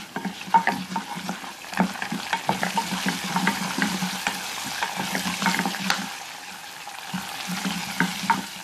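Tempering of mustard seeds, urad dal, ginger, dried red chillies and curry leaves sizzling in hot oil in a small non-stick saucepan while a wooden spoon stirs and scrapes it, with frequent sharp clicks and taps.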